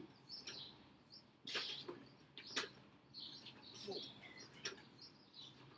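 A man breathing out hard in short bursts about once a second while doing kettlebell squat snatches, with small birds chirping faintly.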